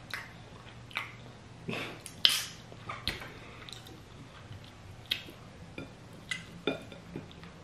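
Close-mic eating sounds of fufu with peanut soup: wet mouth smacks and chewing, with fingers squelching in the soup bowl. About a dozen short, sharp clicks, the loudest about two seconds in.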